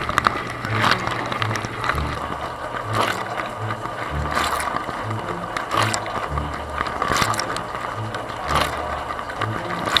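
Dishwasher wash cycle heard from inside the tub: spray from the rotating spray arm sweeps over the camera housing in recurring whooshes about every second and a half, with a clattering rattle between them.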